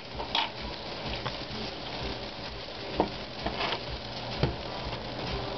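Naan cooking in a hot nonstick frying pan, a steady frying sizzle, the pan a little too hot. A few light clicks and knocks of kitchen utensils break in.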